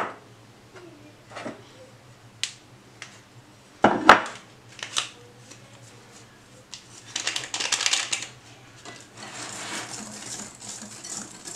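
A few knocks and taps from utensils on the countertop, then, from about seven seconds in, a wire whisk beating flour into batter in a glass bowl, its wires scraping and rattling against the glass in a fast, steady rhythm.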